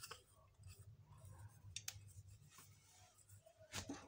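Near silence: faint room tone with a low hum and a few soft clicks, the clearest just before the end.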